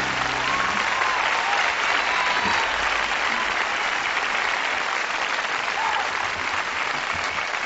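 Audience applauding, with a few scattered cheers. The last acoustic guitar chord of the song rings out and ends in the first second.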